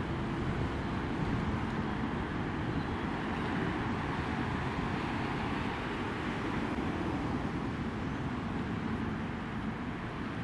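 Steady city street traffic noise: cars driving past as an electric tram rolls slowly toward the corner.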